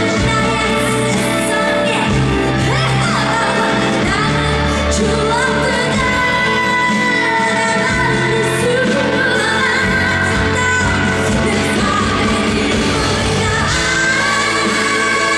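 A female vocalist sings a Korean pop song with band accompaniment under the voice.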